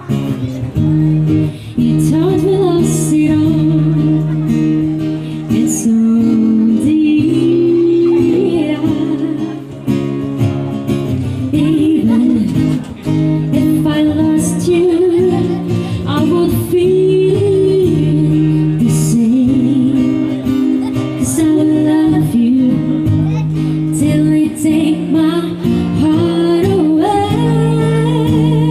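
Acoustic band playing a song: strummed acoustic guitar under a singing voice or lead melody that wavers in pitch.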